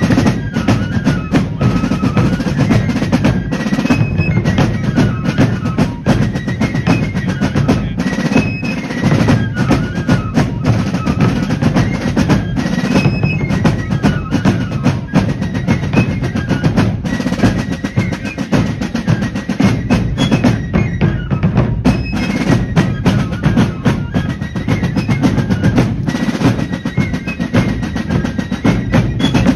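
Fife and drum corps playing a march: fifes carry a high melody over continuous snare drum rolls and rudiments on rope-tension drums, with bass drum beats underneath.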